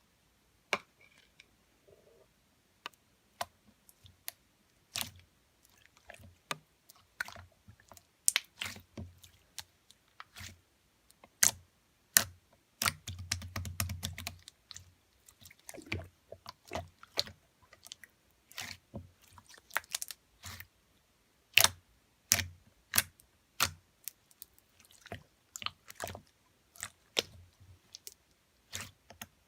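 Clear slime being pressed and folded by hand, giving irregular sharp clicks and pops of trapped air, with a denser, lower squelching stretch about halfway through.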